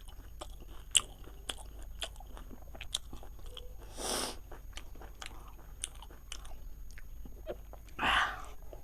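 A person chewing and biting food close to the microphone: a run of sharp, crunchy clicks, with two short breathy rushes, one about four seconds in and a louder one near the end.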